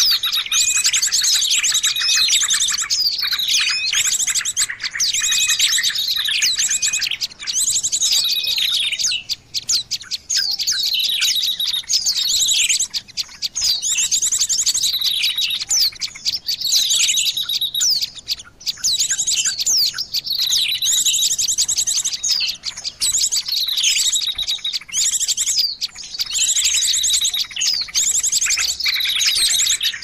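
Small-songbird lure call (suara pikat burung kecil): high-pitched chirps that sweep downward, mixed with fast trills, repeating in the same phrase every few seconds.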